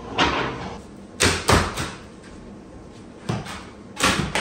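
Wooden boards being knocked and pried apart during demolition: a short scraping burst, then about half a dozen sharp bangs and knocks at uneven intervals.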